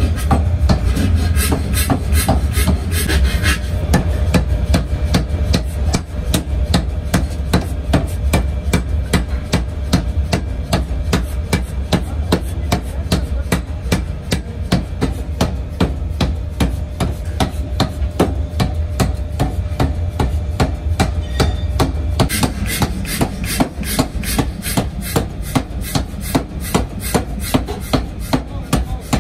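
Power hammer pounding a red-hot steel bar on its anvil die in a rapid, even run of sharp blows, with the machine's deep steady hum underneath.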